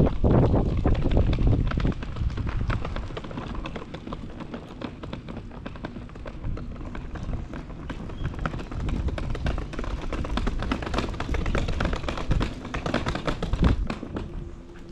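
A loud rumble of wind on the microphone dies away in the first two seconds. A quick, irregular string of taps and clicks on a hard surface follows.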